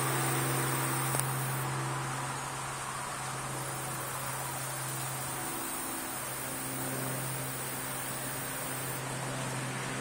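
Steady background hum and hiss, with a faint high-pitched whine and some softer tones that fade in and out.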